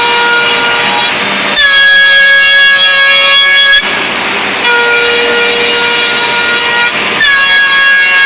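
Music of long held, reedy chords, changing every two to three seconds over a steady background hiss.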